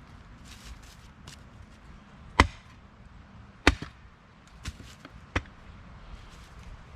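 Batoning: a piece of wood knocking on the spine of the survival shovel's knife blade to drive it through wood. Two loud knocks a little over a second apart, then two lighter ones, with a few faint taps before them.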